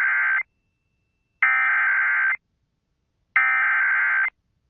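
Emergency Alert System SAME header: bursts of digital data tones, each about a second long with about a second of silence between. The end of one burst falls at the start, then two more follow. These encoded bursts carry the alert's event code and area, here a severe thunderstorm warning.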